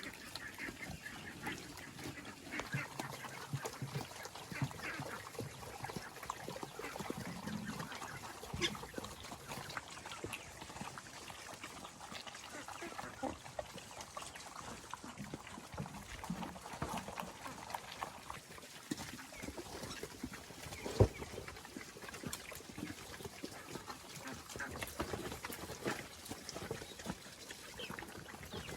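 Farm animals calling in short, scattered bursts, with small clicks throughout and one sharp knock about 21 seconds in.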